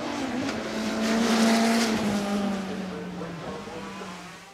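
ICON Sheene motorcycle's turbocharged Suzuki GSX1400 inline-four engine passing by at speed. The engine note swells to its loudest about a second and a half in, then falls slightly in pitch and fades away.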